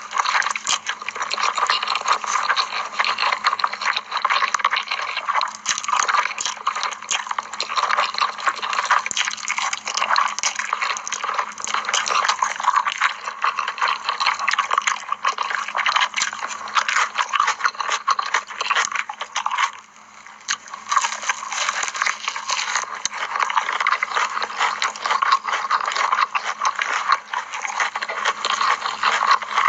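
Close-up wet slurping and chewing of spicy cheesy instant noodles: dense, continuous mouth sounds with a brief pause about twenty seconds in.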